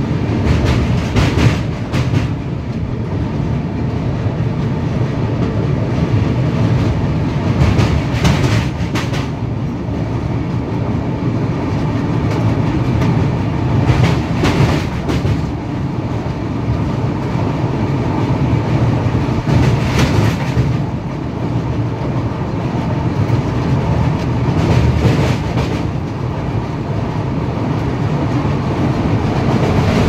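Uday Express passenger train running over a steel truss river bridge, heard from on board: a steady heavy rumble of wheels on the rails with clickety-clack, and louder clatters every few seconds.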